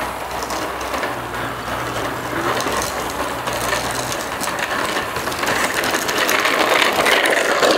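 Bicycle wheels rolling over a gravel driveway: a steady crunching and rattling with many small clicks, louder in the second half.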